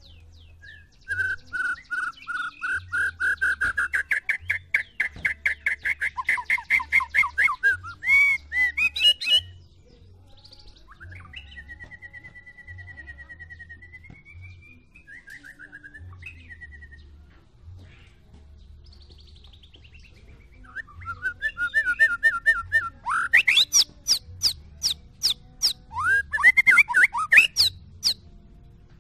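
White-rumped shama singing: loud runs of rapid repeated whistled notes that rise in pitch, a quieter warbling phrase in the middle, then another loud burst of sharp rapid notes near the end.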